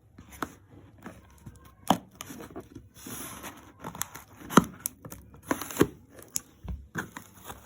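Packaging being handled during an unboxing: paper or plastic rustling and tearing, broken by several sharp clicks and taps, the loudest about four and a half seconds in.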